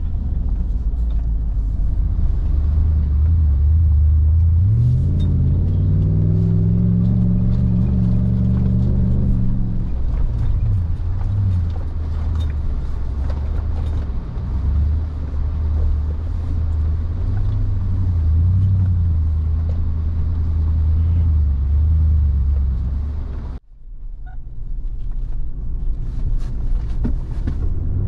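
A Nissan Patrol 4WD's engine running while driving off-road. It picks up revs about five seconds in, eases back around ten seconds, then runs steadily. Near the end there is a sudden short dropout where the recording cuts.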